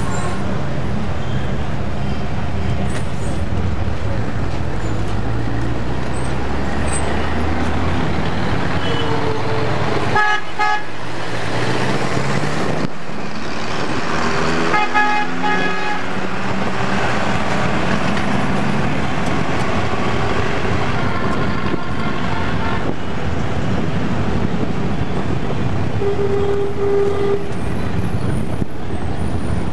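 City street traffic heard from inside a moving taxi: a steady low engine and road rumble, with vehicle horns honking in two clusters of toots, about ten and fifteen seconds in, and a shorter horn near the end.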